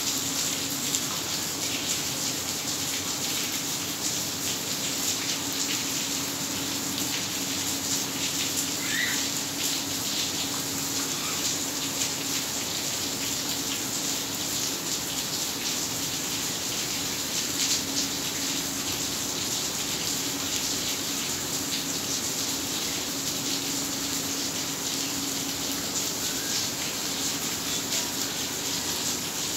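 Heavy rain pouring down onto a flooded yard, a dense steady hiss of drops splashing into standing water on paving and grass. A faint steady hum sits underneath.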